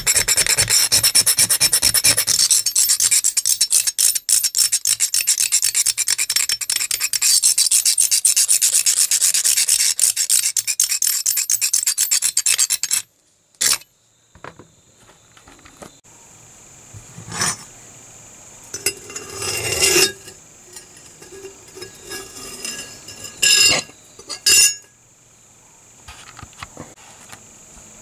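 Hand brush scrubbing rust off a steel knife blade in fast back-and-forth strokes, a steady raspy scratching that stops suddenly about 13 seconds in. After that come only scattered light knocks and clicks from handling the blade.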